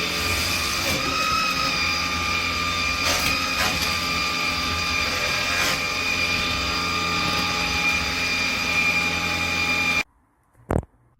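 Vax HomePro Plus cordless stick vacuum running with a steady motor whine. It is switched off abruptly about ten seconds in, followed by a single sharp click.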